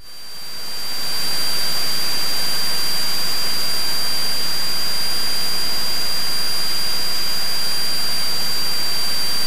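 Steady in-flight cockpit noise of a Cessna 172 in cruise: an even, loud hiss of engine and airflow with a thin high whine, fading in over the first second or so.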